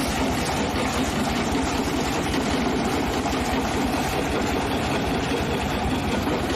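Engine of a heavy brick-breaking machine running steadily, with a fast even throb.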